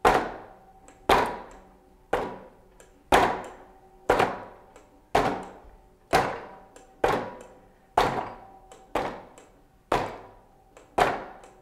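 Gloved fists punching the padded strike panel of a LifeSpan Cycle Boxer, about one hard punch a second, twelve in all, each a sharp impact that dies away over about half a second.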